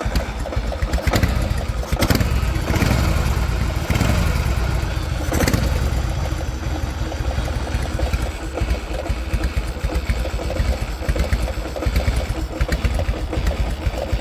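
1985 Harley-Davidson FXSB V-twin running just after starting, idling with a few brief rises in the first six seconds. This is the engine the owner is checking for a knock at low revs that shows up when it is hot and that he has not been able to locate.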